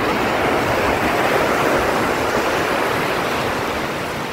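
Surf washing up on a sandy beach: a steady rush of breaking waves that swells about a second or two in and then slowly eases.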